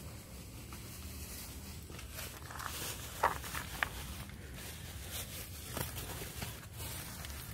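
Footsteps and light scuffs on brick paving, with scattered small clicks and two sharper clicks a little over three seconds in, over a steady low rumble.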